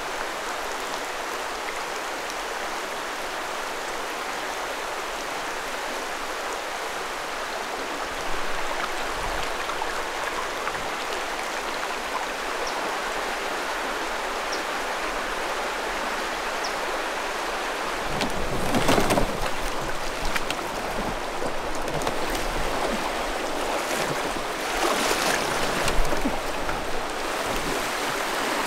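River water rushing steadily, swelling louder for a moment twice in the second half.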